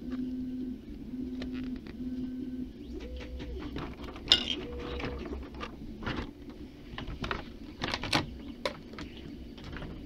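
Thin clear plastic packaging crinkling and clicking as the dolls are handled and lifted from their trays. In the first few seconds a low cooing tone repeats in short pulses, followed by two higher notes that rise, hold and fall.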